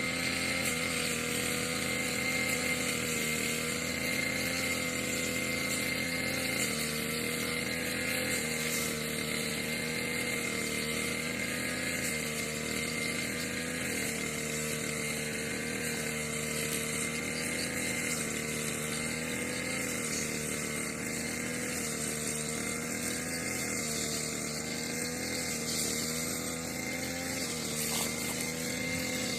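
Brush cutter (grass-cutting machine) engine running steadily at high speed while cutting grass, its pitch dipping slightly every second or two as the blade takes load.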